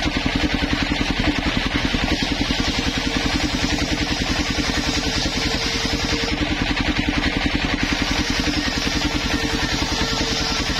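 Homemade table circular saw ripping a timber board lengthwise, the blade cutting steadily over a rapid, even low pulsing from the machine's drive.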